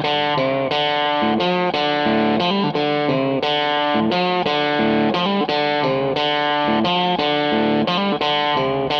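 Background music led by a guitar, playing a run of short notes that change two or three times a second.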